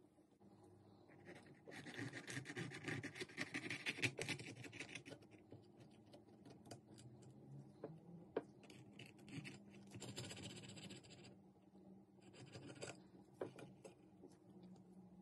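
A knife sawing through a toasted, crisp tortilla wrap on a ceramic plate: faint scratchy crunching and scraping in several bouts, the longest in the first few seconds, with small clicks between.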